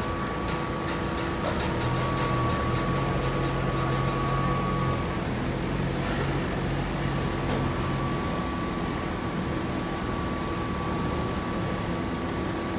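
Hydraulic baler running: a steady machine hum with a thin high whine that drops out for a couple of seconds mid-way, and a quick run of light clicks near the start.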